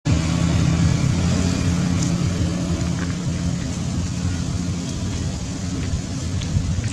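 Low steady engine hum with a rumble, like a motor vehicle running. The hum is clearest for the first few seconds.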